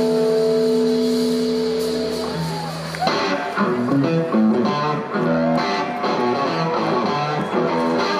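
Live blues-rock band led by an SG-style electric guitar. The guitar holds a sustained chord for about the first three seconds, then breaks into a busy run of short notes with bending pitches over the band.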